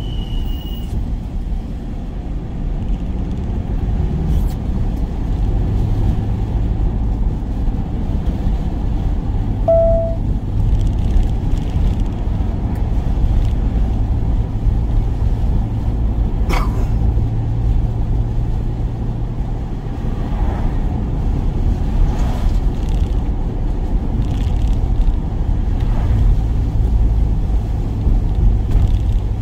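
Steady low rumble of a work van's engine and road noise heard from inside, with a brief tone about ten seconds in and a sharp click past the middle.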